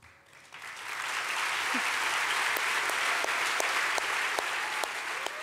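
Audience applauding, swelling up over the first second, then steady, thinning near the end to scattered single claps.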